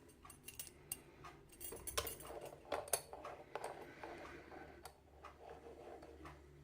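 Small metal padlock and lock-picking tools being handled: scattered light clicks and taps, a little denser about two to three seconds in.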